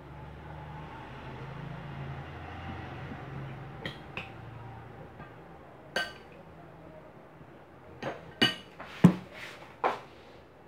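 Metal spoon and serving dishes clinking against a glass bowl and glass plate: a few separate clinks, then a quick run of four or five near the end. A low hum sounds under the first few seconds and fades out.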